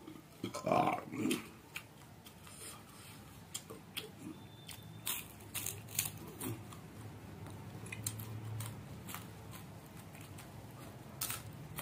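Close-mouthed chewing and biting of crisp fried dried fish, with scattered sharp crunches and clicks. About a second in, two short, louder voiced sounds stand out above the chewing.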